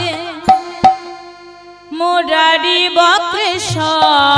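Bengali kirtan music: a woman singing with vibrato over harmonium and hand drum. Two sharp drum strokes about half a second in lead into a short lull with only a held harmonium note. Voice and drum come back in at about two seconds.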